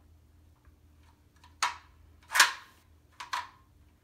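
Latch mechanism of a Corbeau double-locking seat bracket being worked, snapping shut with four sharp clicks, the loudest about midway and a quick pair near the end.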